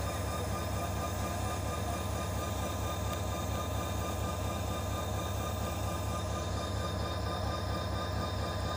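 Diesel locomotive of a standing freight train idling close by: a steady, unchanging low engine rumble.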